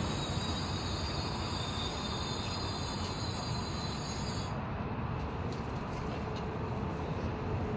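Steady mechanical running noise as new gear oil is pumped through a hose into a truck transmission's fill port, with a high hiss that cuts off suddenly about four and a half seconds in, followed by a few faint ticks.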